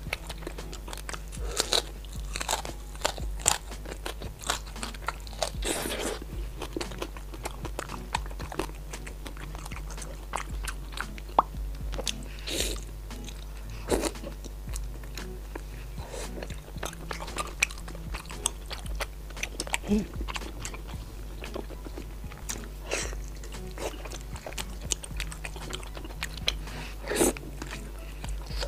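Close-miked eating: crunching bites into crispy-skinned pork belly and chewing of sauce-soaked grilled sweet-potato sheets, with sharp irregular crunches throughout.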